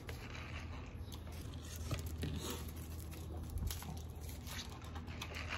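Faint crinkling and tearing of a paper straw wrapper being pulled off, over a steady low hum.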